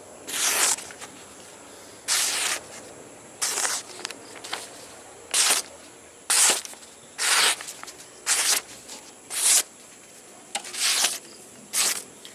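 A freshly made bone-chopping golok blade slicing through a hand-held sheet of paper, about ten quick papery swishes roughly a second apart. The clean cuts are a test of the edge's sharpness: a blade that slices paper is sharp.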